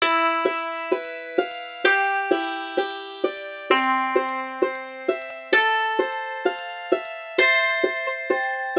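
Background music: a piano-like keyboard playing a slow melody of single struck notes, about two a second, each ringing and fading before the next.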